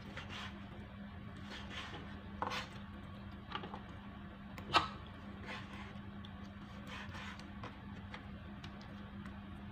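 Santoku knife cutting raw chicken breast on a plastic cutting board: irregular soft cutting strokes with the blade tapping the board, and one sharp knock a little before the middle. A faint steady hum runs underneath.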